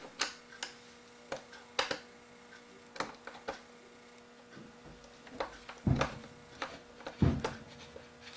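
Small clicks and taps of a screwdriver working a bezel screw out of a laptop screen's plastic frame, with two louder thuds about six and seven seconds in. A faint steady mains hum runs underneath.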